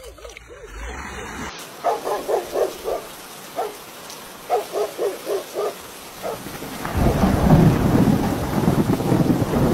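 Steady rain with a loud rumble of thunder setting in about seven seconds in. Before the thunder come two quick runs of short, pulsing calls of about five notes each.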